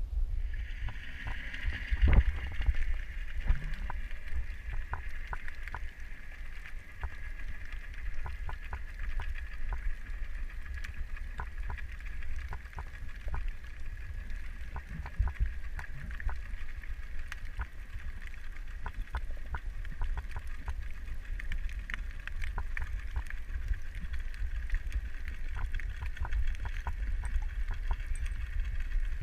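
Underwater ambience: a steady hum over a low rumble, with many small sharp clicks crackling through it.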